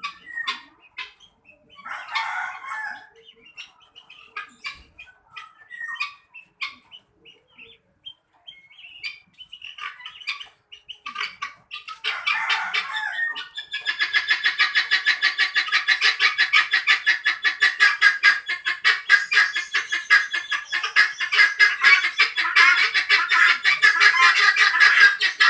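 Chickens calling. At first there are scattered clucks and two longer squawks. About halfway in, a loud, dense chorus of rapid, repeated calls sets in and keeps going.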